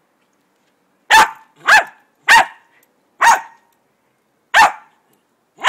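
Dog barking in play, six short, loud barks at uneven gaps, starting about a second in.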